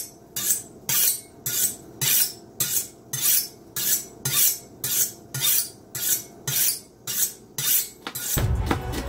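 Kitchen knife blade drawn repeatedly along a honing steel, about two strokes a second, each a short metallic swish, while the edge is honed sharp. Music comes in near the end.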